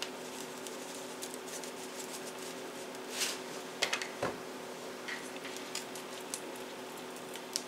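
Coarse ground black pepper shaken from a large plastic shaker onto raw chicken thighs, then fingers working the seasoning into the meat: a few short, soft rattles and patters about three to five seconds in, over a steady low hiss and hum.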